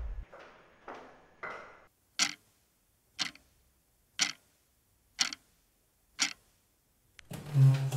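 Wall clock ticking, five sharp ticks one second apart, after a few fading, echoing footsteps. A louder sound with a low steady tone comes in near the end.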